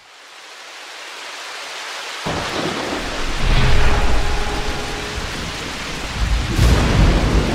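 Rain and thunder sound effects. A hiss of rain swells up, then deep rumbles of thunder come in about two seconds in and build again near the end.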